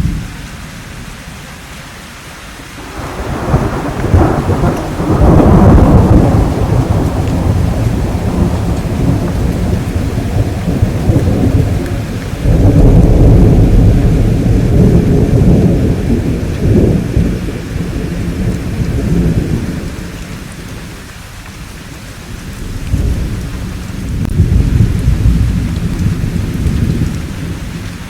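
Thunderstorm: steady rain with three long rolls of deep rumbling thunder, swelling and fading, the first starting about three seconds in and the last near the end.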